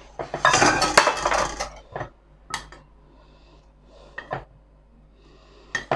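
Flour being scooped into a mixing bowl: a rustling scrape of a scoop or spoon for about a second and a half, then a few separate clinks and knocks of the utensil against the bowl and flour container.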